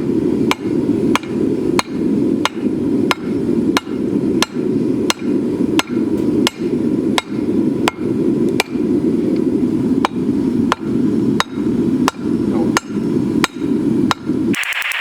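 Hand-hammer blows on hot 1045 steel on the anvil, knocking in the corners of a hammer head being forged. The blows come in a steady rhythm of about three every two seconds over a steady low rumble. Near the end the blows stop and a steady hiss takes over.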